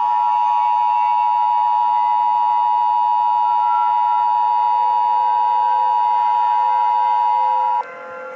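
Emergency Alert System attention signal: a loud, steady two-tone alert held for nearly eight seconds, cutting off suddenly near the end.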